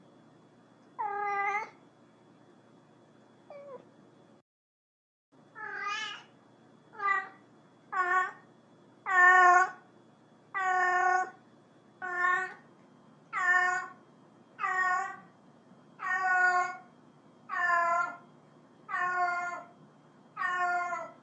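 Domestic cat meowing over and over, calling: after two calls and a short dropout to dead silence, a long regular run of meows follows, about one every second and a half.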